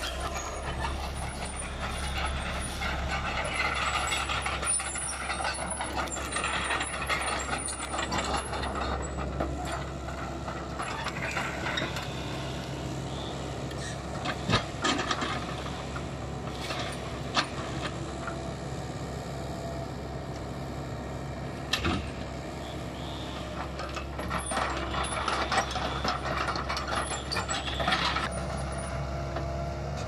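Diesel engine of a crawler excavator running steadily as it lifts and swings pine logs, with a few sharp knocks of logs striking wood and steel through the middle of the stretch.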